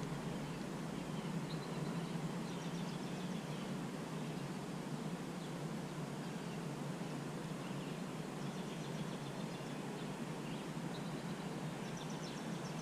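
Outdoor lakeside ambience: a steady low background rumble with faint, scattered bird chirps.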